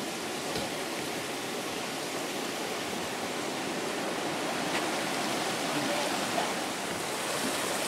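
River water running steadily, a rush of water that grows slightly louder toward the end.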